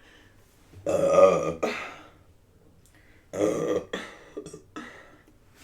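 A woman burping after a meal, twice: a long burp about a second in and a shorter one about three and a half seconds in.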